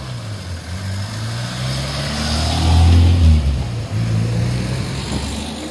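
Cars pulling out and driving past one after another, their engines rising and falling in pitch; the engine noise swells to its loudest about three seconds in as one passes close.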